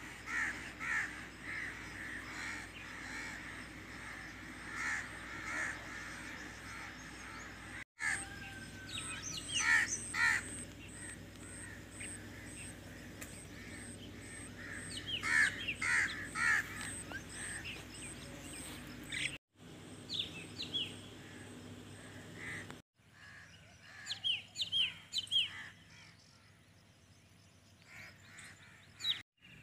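Birds calling outdoors: short repeated calls, with bursts of sharper, higher chirps. The sound drops out abruptly several times at edits.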